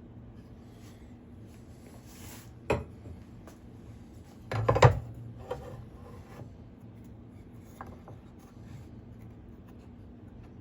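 Wooden pieces being handled and set down on a hard surface: a single sharp knock, then a louder clatter of several knocks about halfway through, with faint rubbing and small taps between.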